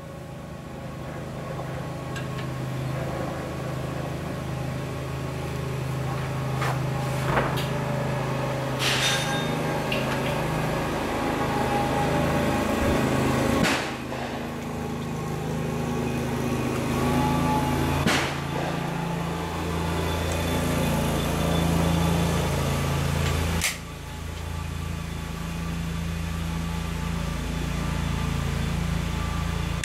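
Car engine and road noise heard from inside the cabin while driving, building up steadily over the first several seconds, with a few light knocks and clicks.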